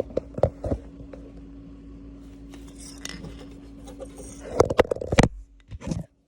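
Metal clinks and knocks of a dishwasher door's hinge spring being hooked onto its link, with a cluster of louder knocks near the end. A steady low hum runs underneath and cuts off just before the end.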